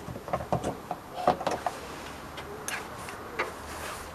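Scattered light clicks and knocks of handling as a small solar panel is positioned on a shed roof, at irregular intervals.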